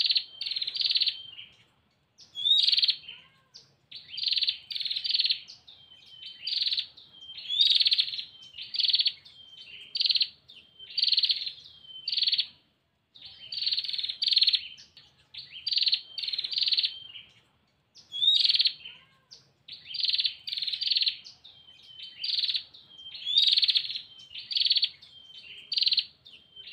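Female prenjak (prinia) giving its rapid, buzzy chattering call over and over, in short bursts about once a second with brief pauses between runs. This is the female's call to a male.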